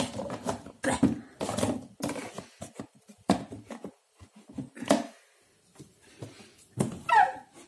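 Cat litter being scooped and scraped about in a plastic litter tray, a run of irregular gritty scrapes and plastic knocks as a fresh clump is cleared out and dropped into the disposal bin.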